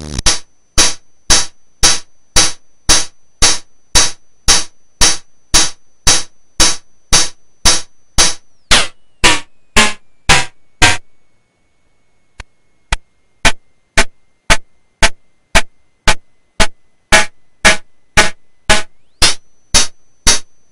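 Homemade CMOS logic-chip synthesizer playing electronic metallic percussion, cowbell- and cymbal-like tones made by XORing square waves: a steady beat of about two bright, ringing hits a second. The hits stop for about two seconds midway, then resume. A faint high tone underneath drops in pitch about nine seconds in and climbs back near the end.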